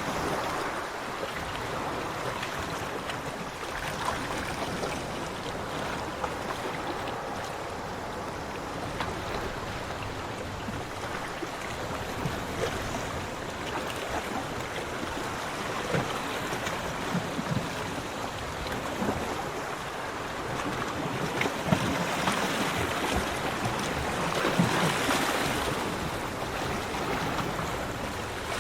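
Sea waves washing onto a beach: a steady wash of surf, with one wave building and breaking more loudly about three-quarters of the way through before easing off.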